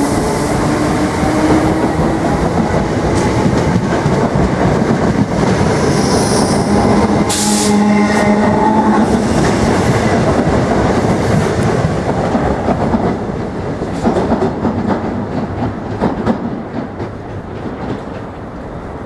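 Electric multiple-unit train running through the station: a steady rumble of wheels on rails, with clicking over rail joints. There is a brief whine about eight seconds in, and the sound fades over the last few seconds as the train moves away.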